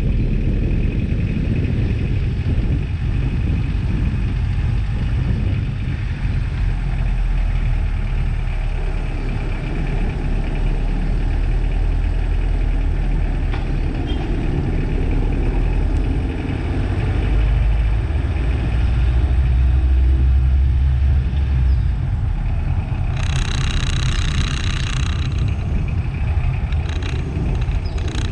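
Engine and road noise of a vehicle driving through town streets: a steady low rumble that swells for a few seconds past the middle, with a brief brighter hiss twice near the end.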